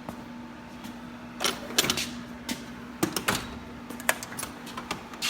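Tool box drawers being handled, with a series of sharp metallic clicks and clatters as the drawers slide and the tools in them shift, over a steady low hum.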